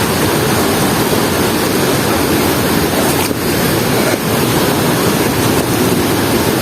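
Waterfall pouring: a loud, steady rush of water.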